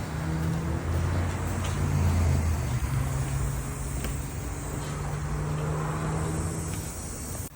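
1995 Honda Civic's four-cylinder engine running with a steady low hum that swells briefly about a second in, then cuts off abruptly near the end. This is the engine with the broken number-three connecting rod behind the customer's knocking complaint.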